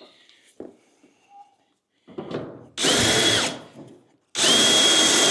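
Handheld power drill drilling rivet holes through the aluminium rear body panel of a Land Rover Series 3 tub. It gives a short burst about three seconds in, then, after a brief pause, runs steadily with a high whine. A few light handling clicks come before the first burst.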